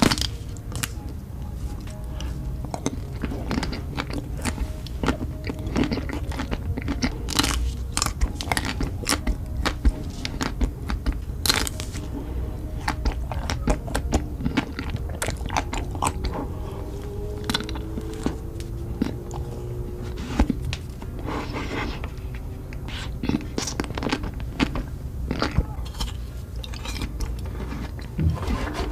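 Close-miked eating: irregular crunching bites and chewing of crisp food, with sharp crunches scattered throughout.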